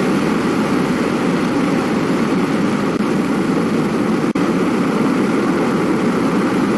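Wind-and-rain sound effect played back: a steady, loud rushing noise, heaviest in the low range, with a momentary dropout about four seconds in.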